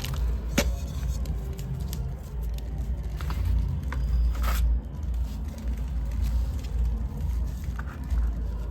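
Dry sand-cement and clay pieces being crumbled and crushed, with a heavy low rumble, gritty scraping and a few sharp cracks.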